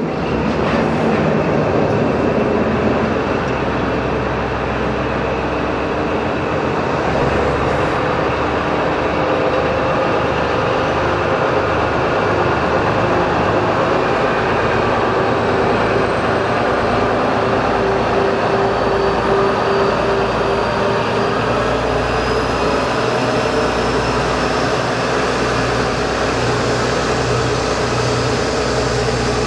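Diesel shunting locomotive KD55 103 running under load as it pulls a string of loaded tank wagons away and past, its engine drone continuous. A faint whine rises slowly in pitch through the second half as the train gathers speed.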